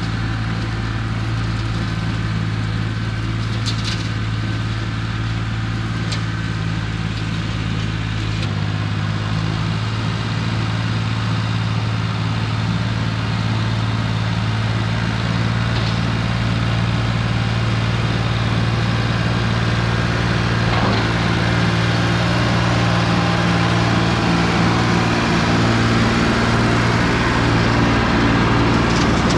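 International 275 tractor's engine running steadily as the tractor drives past with its brush hog, getting somewhat louder as it comes close near the end.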